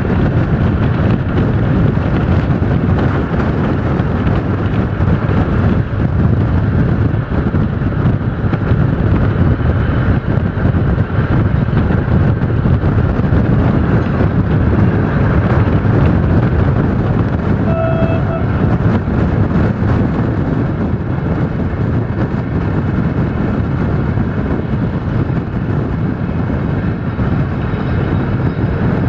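Passenger train running at speed, heard from a carriage window: a steady rumble of wheels on rail and rushing air, with no clear beat of rail joints. A brief, steady, faint tone sounds about two-thirds of the way through.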